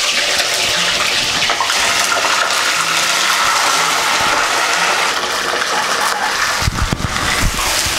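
Raw chicken pieces sizzling steadily in hot mustard oil in a kadai, frying at high heat just after going in. About seven seconds in, a few knocks from a metal spatula stirring the pieces sound over the sizzle.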